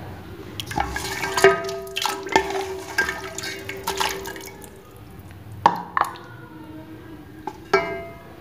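Curry broth being ladled into a ceramic serving bowl: liquid pouring and splashing, with a series of sharp clinks as the ladle strikes the bowl. Some of the clinks ring on briefly.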